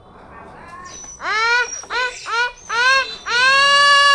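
Rooster crowing, starting about a second in: four short arched notes, then one long drawn-out note that slowly falls in pitch.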